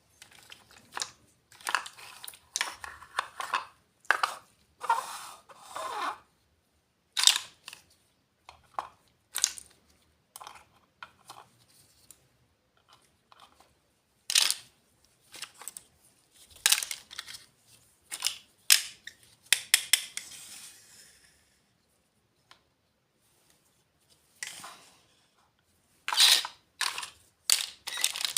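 Small doll-house furniture pieces and their packaging being handled: irregular clicks and taps mixed with crinkling, tearing rustles, with short quiet gaps between.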